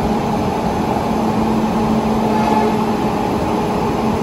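A WAP-7 electric locomotive standing at the platform, its cooling blowers and auxiliary machinery running with a steady hum and one held tone.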